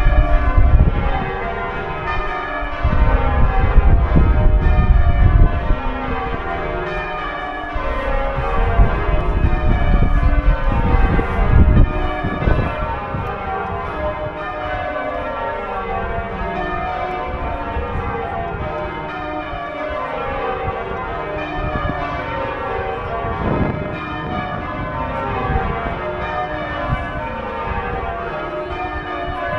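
York Minster's church bells change ringing: a ring of bells struck one after another in rapid, overlapping rounds. A low rumble comes and goes during the first twelve seconds or so.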